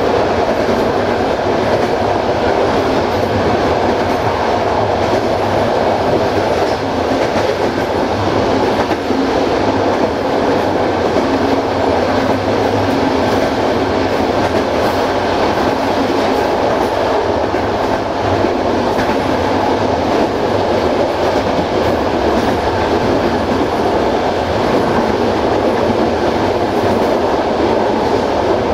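Passenger train coach running along the track, with a steady rolling noise of wheels on rails, heard from the rear of the train.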